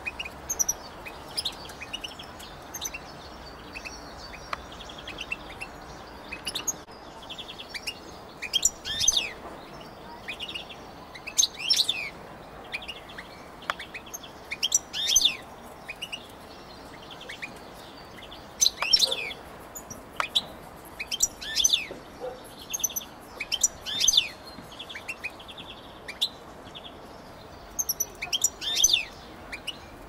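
European goldfinch song from caged birds: a long run of quick, sharp twittering chirps broken up by buzzy trills.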